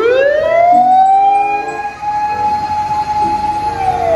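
Fire engine siren winding up from low to a high steady wail, then beginning to slide back down in pitch near the end, on a red Hino fire pump truck.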